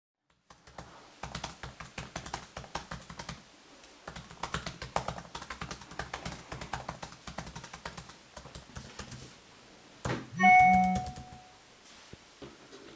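Rapid typing on a computer keyboard, with a short pause a few seconds in, stopping after about nine seconds. About ten seconds in comes a brief, loud pitched sound, the loudest thing here.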